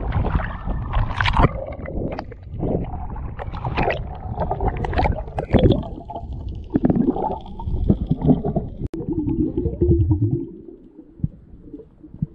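Sea water splashing and sloshing around a waterproof camera housing at the surface, with irregular knocks and gurgles. About ten seconds in it turns quieter and muffled as the camera goes underwater.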